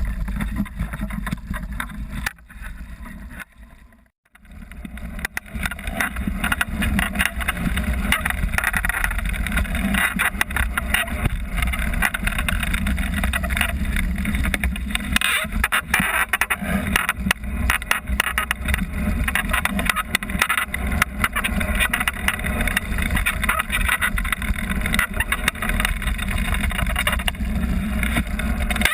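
Wind rushing and buffeting over the microphone with a low rumble and constant rattling, as a mini land yacht runs over the beach sand. The sound dips almost to nothing a few seconds in, then comes back.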